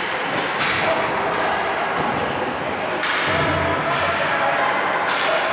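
Ice hockey play in a rink: a scattering of sharp clacks and thuds from sticks, puck and boards, about seven in all, over a steady hiss and background voices.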